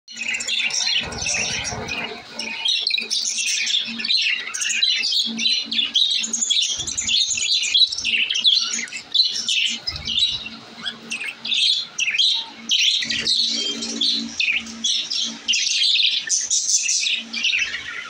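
A flock of budgerigars chirping and chattering, many high calls overlapping without a break.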